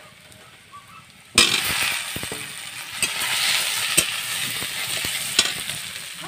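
Potatoes and onions sizzling in hot oil in a pan as they are sautéed. The loud sizzle starts suddenly about a second and a half in, with sharp clicks of a spatula stirring against the pan.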